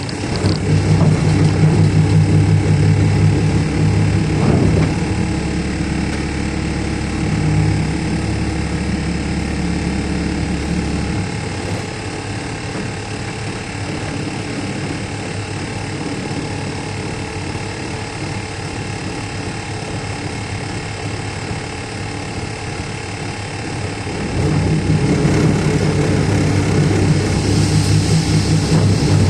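Heavy diesel engine of a Caterpillar excavator running and working. It is louder under load at the start, settles to a lower, steadier note in the middle, and picks up again near the end.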